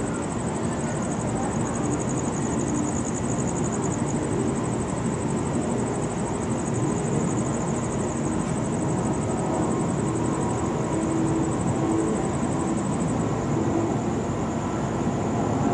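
Steady low rumble of distant city traffic, with a constant high, fast-pulsing trill running above it.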